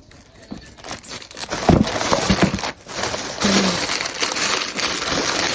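Packaging crinkling and rustling as it is handled and torn open. It is quiet at first and then crackles steadily from about a second and a half in.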